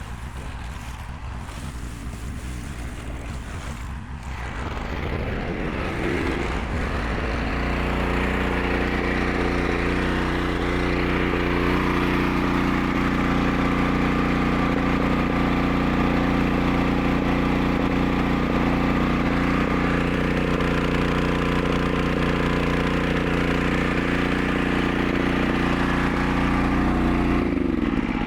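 Magnum 4000 Gold hot water pressure washer running: it rises in level and pitch from about four seconds in, holds a steady hum, and winds down just before the end. Water is escaping at a fitting with no seal, so the pressure is lost there.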